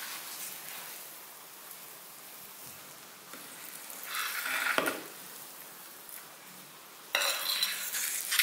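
A fork stirring and punching down sticky risen yeast dough in a glass bowl, the fork scraping and knocking against the glass. It gets louder about four seconds in, and again suddenly near the end.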